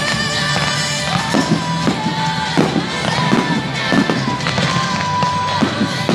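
Music with long held notes, and over it aerial firework shells bursting, about two bursts a second.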